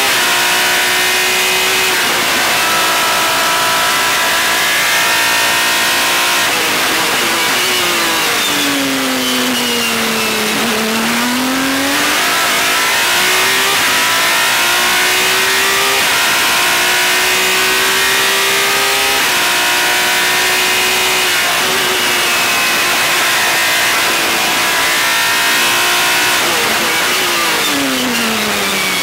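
Onboard sound of a World Series by Renault single-seater's racing engine at speed, its pitch climbing and stepping through gear changes. About eight seconds in it falls away under braking and downshifts, bottoms out around ten seconds in and climbs again out of the corner, then drops once more near the end, with steady wind and road hiss throughout.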